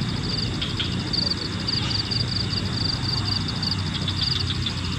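Night insects chorusing in a steady, fast-pulsing high trill over a low rumble, with a few faint clicks.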